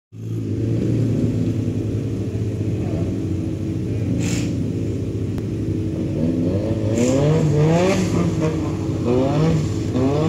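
Drift car's engine idling, then revved in repeated short blips from about six seconds in, the pitch rising and dropping with each one.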